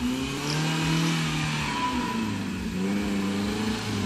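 Small off-road 4x4's engine revving up and down under load as it climbs out of a dirt ditch, its pitch dropping about a second in and rising again near the end.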